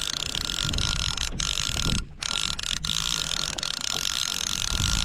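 Conventional fishing reel ratcheting steadily, with a brief break about two seconds in, while a heavy fish is fought.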